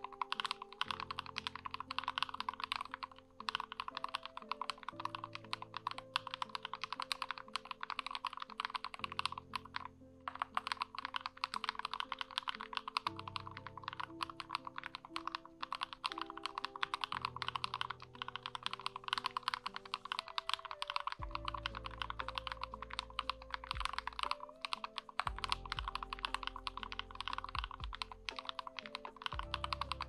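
Continuous fast typing on a GMMK White Ice mechanical keyboard with Akko CS Matcha Green linear switches, lubed with Krytox 205G0, the case taped and dampened with sound deadener: a dense run of keystrokes with brief pauses. Soft background music with slow chords runs underneath.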